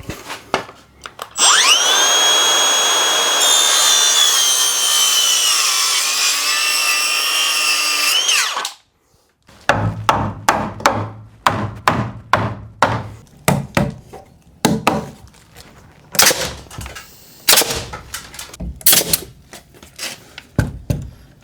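A power saw runs for about seven seconds, its motor whine sagging in pitch as it cuts through a timber stud, then stops abruptly. After a short pause comes a long run of sharp knocks on timber, about two a second.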